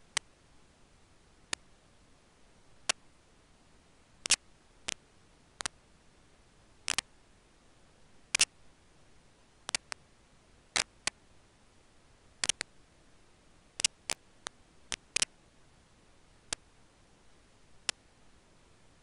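Irregular sharp clicks, roughly one a second and some in quick pairs, over a faint steady hiss.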